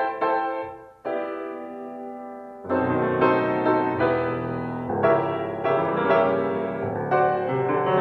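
Background music: piano or electric piano chords, a brief break about a second in, then fuller playing with a bass line underneath from about three seconds in.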